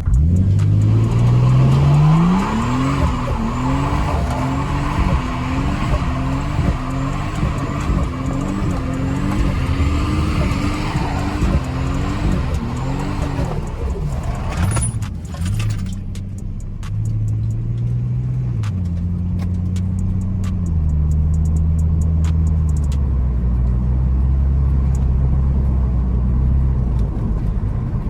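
Ford BA Falcon XR6 Turbo's 4.0-litre turbocharged straight-six being revved on its first run with a freshly replaced turbo core. The pitch rises over the first couple of seconds and is held up with a steady rise and fall until about halfway. After a few sharp clicks it drops back and settles toward idle in steps.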